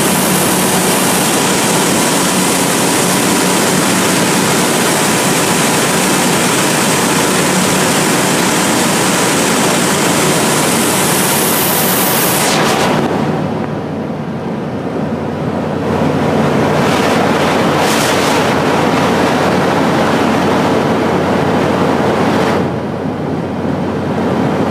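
Steady engine and propeller drone with loud wind rush, heard inside the cabin of an Ikarus ultralight in flight. About halfway through the hiss drops away and the sound dips for a few seconds, and it dips again near the end.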